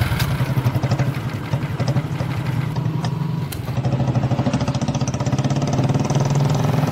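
Motorcycle engine running with a fast, even pulse as the bike rides off carrying two people.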